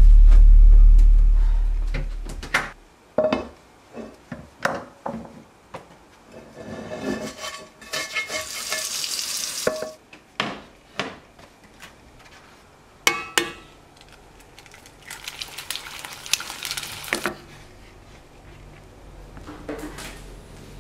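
A low music drone fades out over the first two seconds. Then come kitchen sounds at a gas stove: a string of clinks and knocks of pans and utensils, with two stretches of high hiss.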